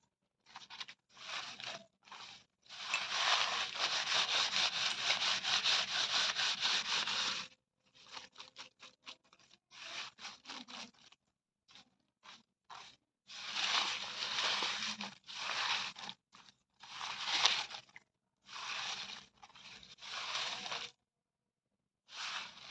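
A series of tearing sounds as material is ripped: one long tear lasting about five seconds near the start, then many short rips with pauses between.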